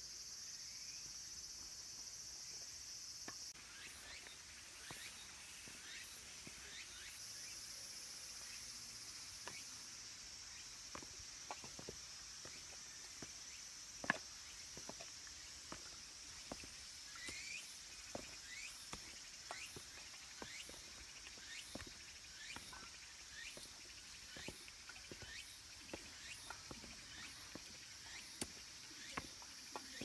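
Cicadas drone steadily with a high buzz from the surrounding trees. Footsteps on a stone path and stone steps make short, irregular scuffs and taps over it, with one sharper knock about halfway.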